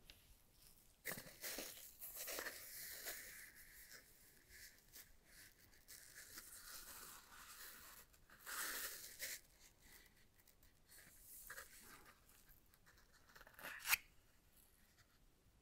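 Gloved hands handling Apple AirPods Max headphones: quiet scratchy rustling and rubbing of nitrile gloves on the headband and ear cups, in two longer bursts with small ticks between. A sharp click near the end as a magnetic ear cushion comes off the ear cup.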